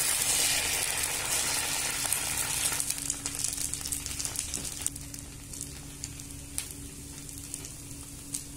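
Dosa batter sizzling on a hot tava just after being poured and spread. The hiss is strongest at first and dies down over about three seconds to a quieter sizzle with scattered pops and crackles as the dosa sets.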